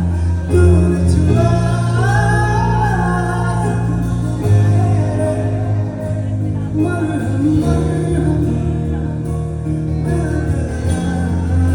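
A slow Hindi film song: a voice singing a wavering melody over sustained bass and instrumental accompaniment.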